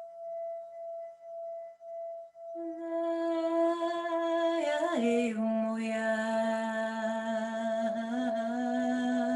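A singing bowl rings on one steady tone. About two and a half seconds in, a voice joins with a long held sung note, which slides down to a lower pitch about five seconds in and holds there.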